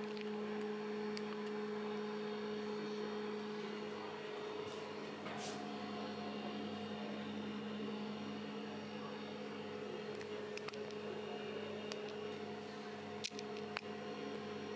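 Steady electrical appliance hum: a low, even drone with a fainter higher tone above it. There are a few faint clicks.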